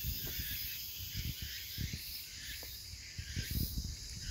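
A steady, high insect chorus in woodland, with soft rustles and low bumps of handling noise scattered through it.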